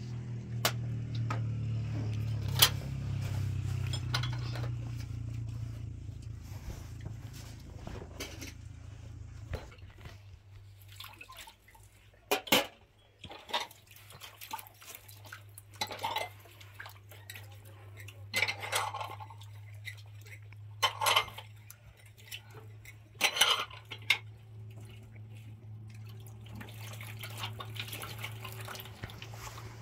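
Dishes and utensils clinking and clattering now and then over a steady low hum.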